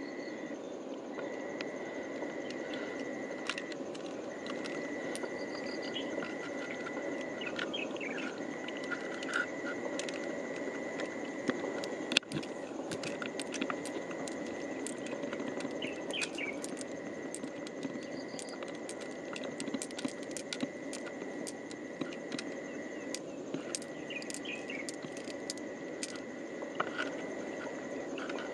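An insect's steady high trill, breaking off briefly now and then, over a steady low rush of creek water, with many small sharp clicks of pearls knocking against each other and against the mussel shell as they are picked out by hand.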